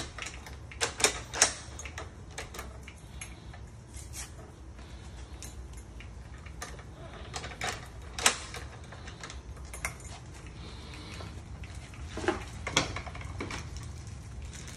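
Sharp clicks and taps from handling metal lock hardware and tools during a mortise lock replacement, scattered and irregular over a low steady hum. The loudest come as three quick clicks about a second in, one a little past the middle, and a pair near the end.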